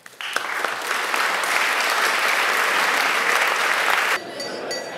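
Audience applauding, a dense burst of clapping that starts just after the speech ends and drops away suddenly about four seconds in.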